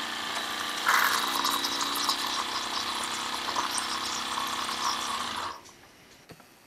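Braun Tassimo capsule coffee machine at the end of a brew, hissing and sputtering as the last water and steam are blown through into the glass, with a loud spurt about a second in. It cuts off suddenly after about five and a half seconds, followed by a faint click.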